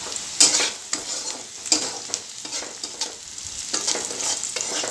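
Chopped onion and green chilli sizzling in hot oil in a black wok-style pan, stirred with a white spatula that scrapes the pan in quick, irregular strokes, the loudest about half a second in.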